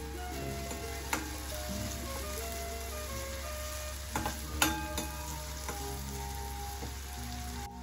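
Chopped onion and whole spices frying in hot oil in a stainless-steel kadai: a steady sizzle, with a metal spoon stirring and scraping, clinking against the pan a few times about four to five seconds in.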